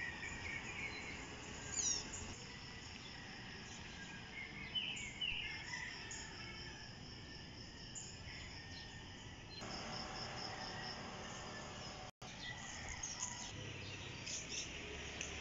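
Outdoor ambience of insects trilling in steady trains of rapid high pulses, with a few short bird chirps. The sound briefly cuts out completely about twelve seconds in.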